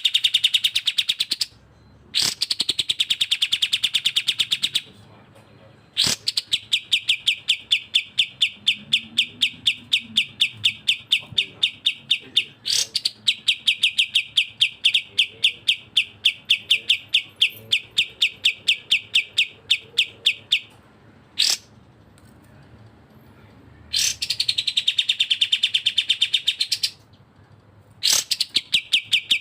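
Songbird song for bird-song training: fast, evenly repeated sharp notes, about five a second, in runs lasting from a second or two up to about fifteen seconds, with short pauses and a couple of sharp clicks between runs.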